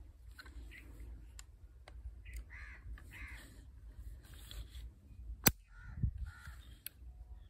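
Crows cawing in the background, two pairs of harsh calls, while an old single-barrel 12-gauge shotgun is handled, with light metal clicks and one sharp click a little past halfway.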